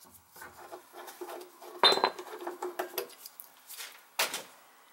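Metal tools and fittings clinking and rattling as they are handled at a gas water heater's control valve, with scattered light clicks. A sharper metallic knock about two seconds in rings briefly, and another knock comes near the end.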